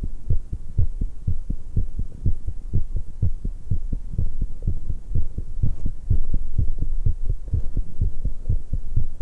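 A woman's heartbeat, pounding fast after exercise: a rapid, steady run of low lub-dub thumps.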